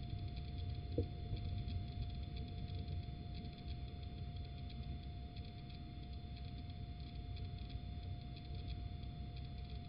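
Steady electronic hum and low rumble from a nest-box camera's microphone, with faint ticking and one short scratch about a second in.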